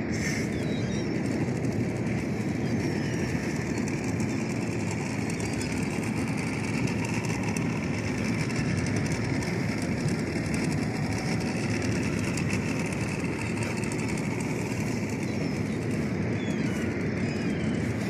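A small fishing boat's outboard motor running steadily under way, heard as a dense low rumble mixed with a rush of wind and water.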